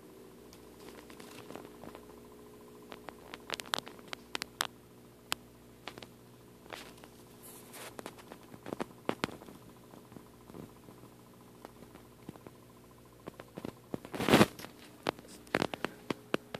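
Handling noise from a handheld recording: irregular clicks and rustles, loudest in a short cluster near the end, over a steady low hum.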